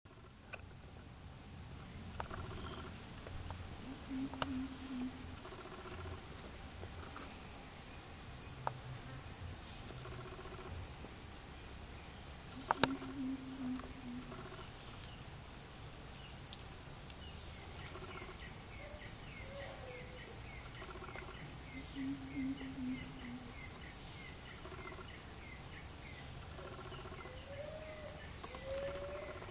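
Insect chorus: a steady, unbroken high-pitched drone. Faint short chirps and calls come and go beneath it, with a quick run of chirps through the middle, and a few sharp clicks.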